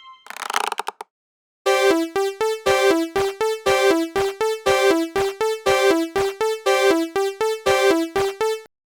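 Synthesized alarm of a made-up level crossing: a keyboard-like tone alternating between two close notes, low and high, in a quick steady rhythm. It starts about one and a half seconds in and stops shortly before the end. A short hissy burst comes just before it.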